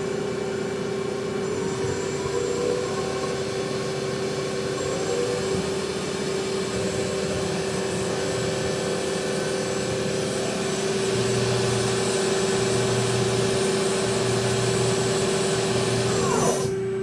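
A 2012 ACRA CNC-1440 lathe running with a steady whine and a constant hum. Near the end a quick falling whine is heard, then the running noise stops and only a hum is left.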